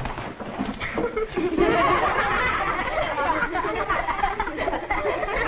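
A roomful of children laughing and giggling together, many voices at once, swelling about a second and a half in.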